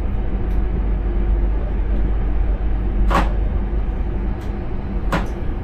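Intercity train heard from inside the driver's cab: a steady low rumble with a few short, sharp knocks, the loudest about three and five seconds in.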